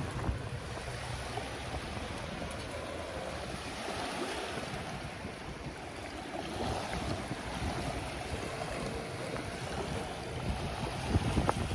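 Small waves washing and lapping onto a sandy shore, with wind rumbling on the microphone.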